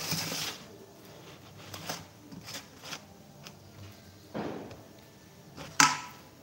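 Light knocks, clicks and scrapes of a stainless steel plate of food being set down and handled on a table, with a sharp metallic clink near the end.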